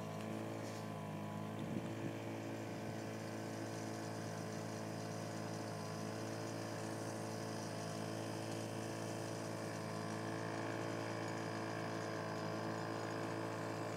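Boat engine running at a steady speed, an even, unchanging drone heard from aboard.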